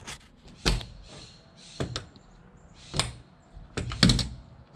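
Several sharp knocks about a second apart, then a quick run of clicks near the end as a hand works the latch on a Topo Toppers Mesa camper's side hatch.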